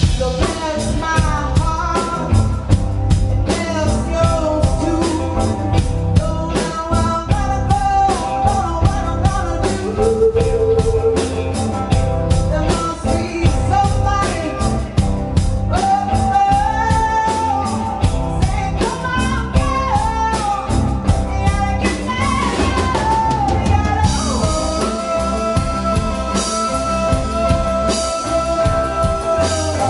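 A live band playing: a woman sings lead over a drum kit, bass guitar and guitars. Near the end a long note is held steady.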